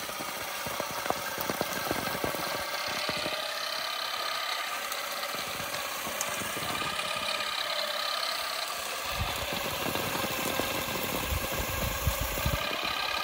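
Derentürk battery-powered olive harvester running: its electric motor whines steadily, the pitch wavering as the beating head works through the branches, over constant rapid clicking and rattling of the tines striking twigs. A low rumble joins about nine seconds in.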